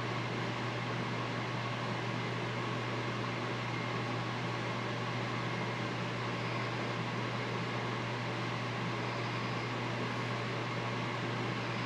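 Steady mechanical hum: a constant low drone with an even hiss above it, unchanging throughout.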